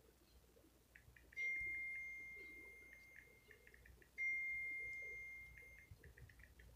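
iPhone keyboard clicks ticking faintly as a text message is typed, with a single high tone that rings out and fades over a second or two, sounding twice, about a second and a half in and again about four seconds in, as each message is sent.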